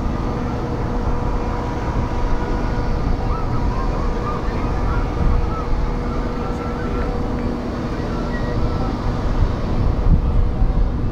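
Large car ferry's engines running with a steady low hum at the quay, wind rumbling on the microphone over it.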